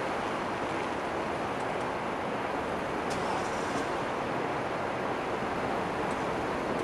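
Steady, even wash of street and traffic noise in front of a station, with a few faint high ticks about halfway through; the departing train adds no distinct sound of its own.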